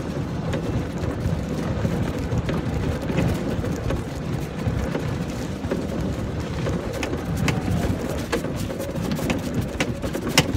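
Open golf cart driving over a rough sandy, stony track: a steady low rumble of the wheels and wind, with sharp rattles and clicks from bumps that come more often in the second half.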